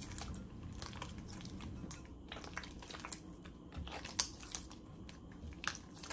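Hands squeezing and squishing wet, sticky pizza dough, working yeast water into it: soft squelches with scattered short clicks.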